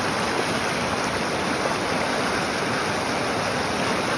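Fast-moving mountain creek rushing and tumbling over rocks in a steady, loud roar of whitewater.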